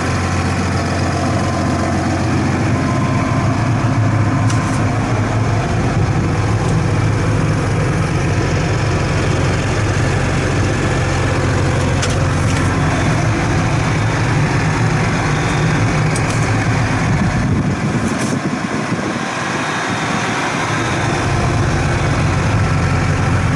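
Case MX285 Magnum tractor's six-cylinder diesel engine running steadily, heard from inside the cab. There are a few light clicks, and the low drone dips for a couple of seconds about three-quarters of the way through.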